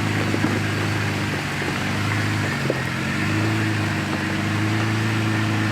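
Off-road 4x4's engine running steadily at low revs while the vehicle holds its position on a rock obstacle, with a brief waver in its note about halfway through.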